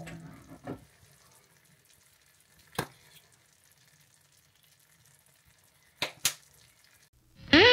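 Faint sizzling of beans in sauce frying in a stainless steel pan, broken by a few short clicks: one about three seconds in and two in quick succession about six seconds in.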